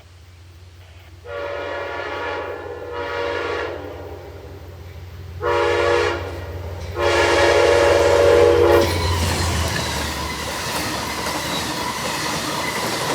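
Amtrak P32AC-DM diesel locomotive approaching with its engine running and its air horn sounding long, long, short, long, the grade-crossing signal. After the last blast, about nine seconds in, the train passes close by with a steady rush of wheel and rail noise.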